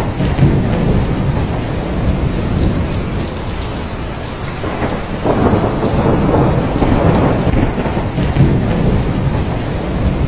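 Steady heavy rain with thunder rumbling low underneath, the rumble swelling about halfway through.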